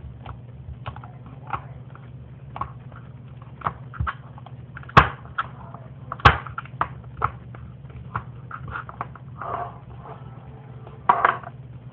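Objects being handled on a hard surface: scattered small clicks and taps, with two loud sharp knocks about five and six seconds in and brief rustling near the end, over a low steady hum.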